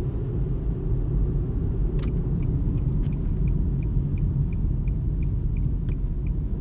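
Steady low road and engine rumble heard inside a moving car. From about two seconds in, a faint regular ticking sounds about three times a second.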